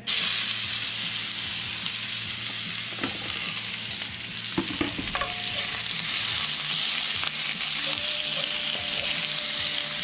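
Chicken pieces dropped into hot oil in a cast-iron skillet, sizzling loudly from the moment they hit the pan. A wooden spatula stirs them, knocking against the pan a few times.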